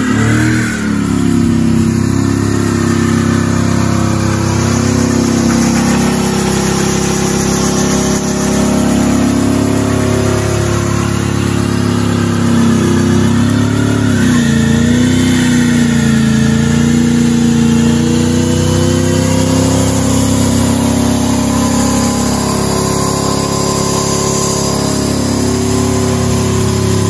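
Ford AU Falcon XR8's V8 engine held at high revs in a burnout, the rear tyres spinning on concrete. The revs dip briefly about halfway through and climb again.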